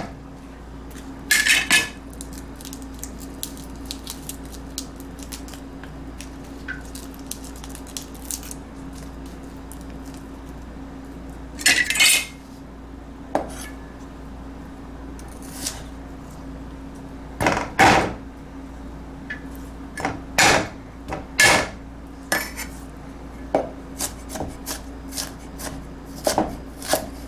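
Steel cleaver striking a wooden cutting board as garlic cloves are crushed and chopped: scattered heavy knocks, then a run of quicker, lighter chops near the end. A faint steady hum runs underneath.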